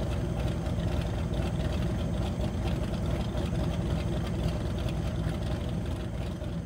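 Steady low rumbling background noise with a faint hum, like an engine idling or wind on the microphone.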